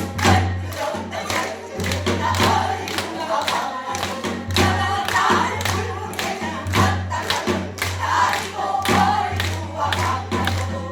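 Several voices singing a Korean Namdo folk song together, with frequent percussive strikes keeping the beat and a steady low hum underneath.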